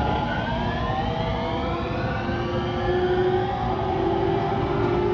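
Electric train's inverter whine, several tones rising together in pitch as a train accelerates, over steady rumbling station noise.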